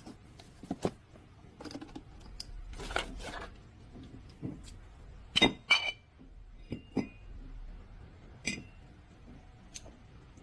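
Metal tools and parts clinking and clanking irregularly, with a few sharper metallic clanks that ring briefly: a pair about five and a half seconds in and one more near the end.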